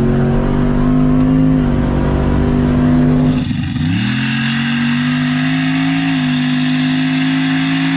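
Turbocharged 6.0-litre LS V8 of a mega truck at full throttle on a launch, its pitch climbing and holding high. About three and a half seconds in the revs drop briefly with a gear change, then climb again and hold.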